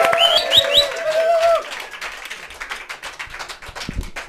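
Studio audience cheering and whooping with a few short rising whistles, then clapping that thins out and fades.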